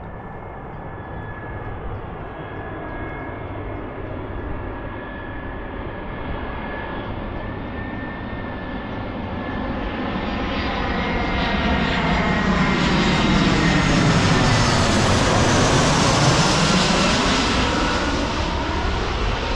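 Finnair airliner passing low on its landing approach. The engine noise grows steadily with a thin steady whine, swells to its loudest with a sweeping, phasing sound as the plane goes overhead about two-thirds of the way in, then begins to fade.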